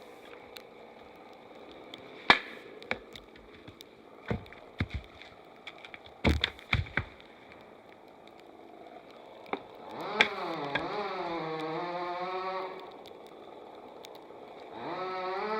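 Scattered sharp knocks and cracks, then an animal bleating twice: one long wavering call about ten seconds in and a shorter one near the end.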